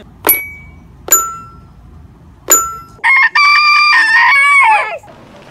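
A hen pecks the bars of a toy xylophone three times, each peck sounding one ringing note. Then a rooster crows once, a call of about two seconds.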